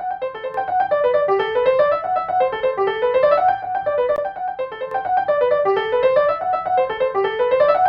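Piano-style keyboard music: a tune of short notes that climb in quick repeated runs.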